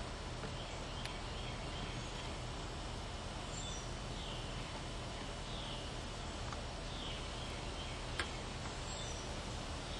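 Steady outdoor background noise with faint, short bird chirps repeating every second or so, and one sharp click about eight seconds in.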